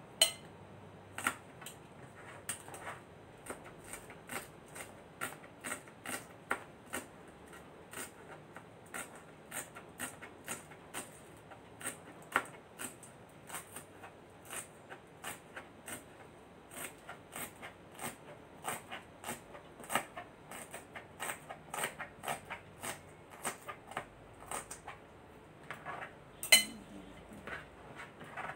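Kitchen knife chopping on a small cutting board, with quick, even taps about two a second and one louder knock near the end.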